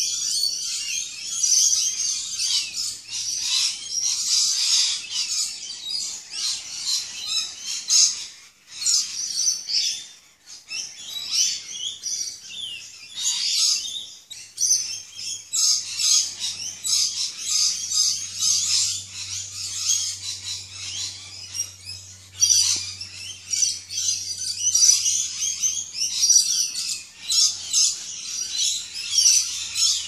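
Rainbow lorikeets and noisy miners chattering and screeching without pause, a dense shrill din of overlapping calls with brief lulls about eight and ten seconds in.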